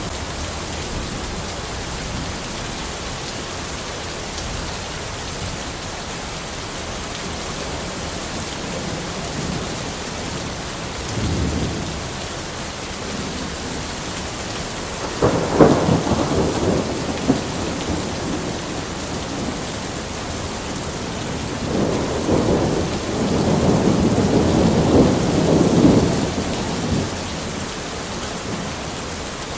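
Steady rain falling in a forest, with rolls of thunder: a short rumble about a third of the way in, a sharper, louder clap at about the middle, and a longer rolling rumble near the end.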